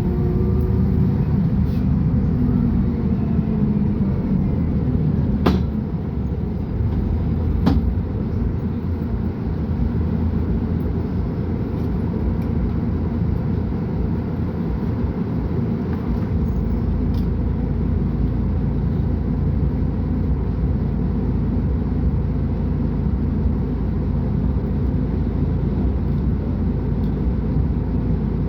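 Diesel engine of a Mercedes-Benz O500UA articulated bus running steadily, a loud low rumble, with two sharp clicks a couple of seconds apart early on.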